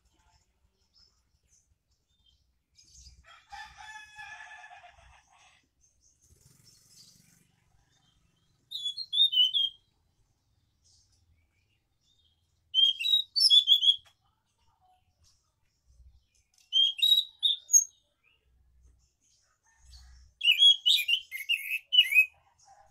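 Caged scaly thrush singing in four short bursts of quick warbled notes, each about a second long, the last one the longest.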